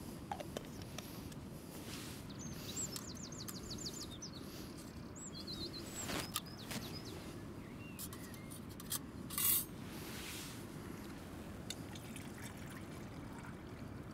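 Outdoor wind rumble with a small bird chirping in quick runs a few seconds in, and light clinks and knocks as the metal parts of a small camping spirit stove are fitted together, the loudest a short sharp noise about nine and a half seconds in.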